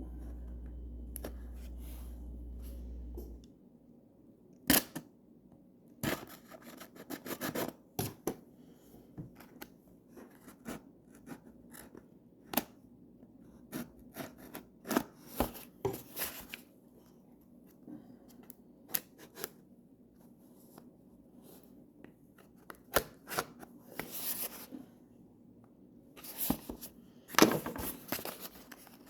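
Packaging of new Nintendo Switch Joy-Con controllers being opened by hand, likely cut with scissors: scattered sharp clicks, snips and short rustles of cardboard and plastic. A low steady hum stops about three seconds in.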